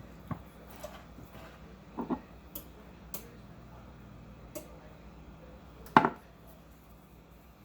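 Scattered light clicks and knocks of seasoning containers and dishes being handled on a kitchen counter, with one louder knock about six seconds in.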